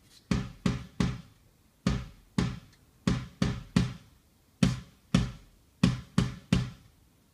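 Drum hits in an uneven, grouped rhythm, each a sharp, full-bodied strike that dies away quickly.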